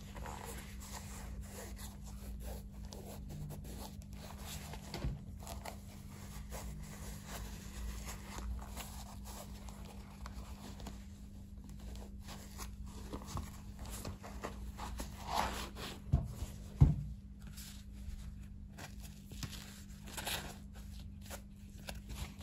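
Hands handling worn black suede shoes: soft rustling and scraping of suede, rope laces and fleece lining, with a couple of light knocks a little past the middle and a fleece insole being pulled out near the end. A steady low hum runs underneath.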